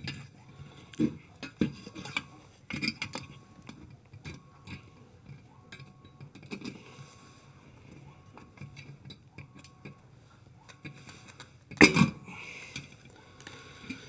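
Plastic fan blade being worked off a refrigerator condenser fan motor's shaft, the sheet-metal motor bracket clinking and knocking against a tile floor: scattered small knocks, with one louder knock near the end.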